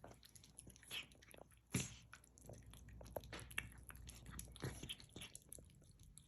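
Faint, irregular crunching and small clicks from a dish of cat food, with a few sharper ticks.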